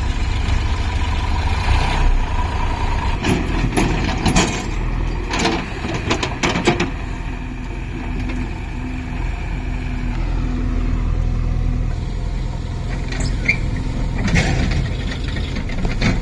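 Diesel engine of a JCB 3DX backhoe loader running steadily while it digs and loads, with bursts of metal clanks and knocks from the working machine. A short run of repeated beeps sounds in the middle.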